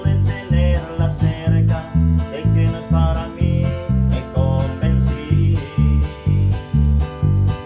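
Live band music: guitar playing over a heavy, steady bass beat of about two pulses a second.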